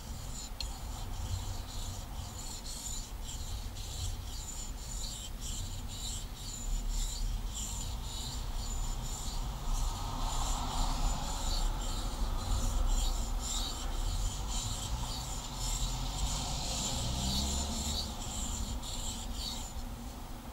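Steel knife blade being stroked back and forth across a whetstone: a run of short, even scrapes, about two a second, stopping just before the end.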